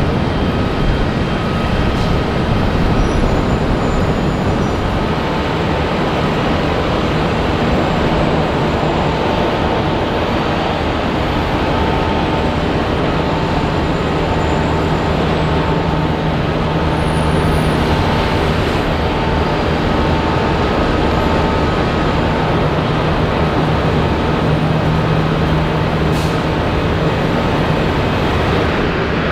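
Jet airliner engines running steadily: a continuous rumble with faint steady whining tones.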